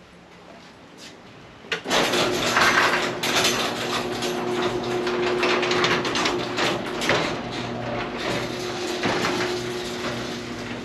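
Sectional garage door closing on its opener. About two seconds in the motor starts with a steady hum, and the panels rattle and click as they roll down their tracks.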